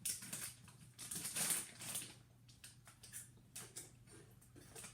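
Crunching chews of Cheetos, a run of irregular crackly bites and chews, strongest in the first couple of seconds.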